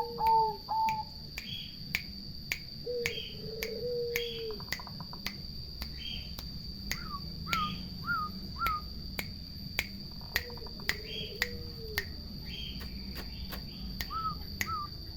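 Doves cooing in short phrases of low, rolling notes, three times, with a few higher chirps from another bird. A steady high-pitched tone and evenly spaced ticks, about two a second, run underneath.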